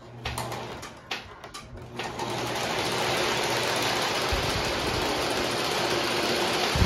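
Lionel O-gauge Illinois Central passenger train running on three-rail track, its motor and wheels making a steady whirring that builds over the first couple of seconds after a few clicks. A low thump comes near the end.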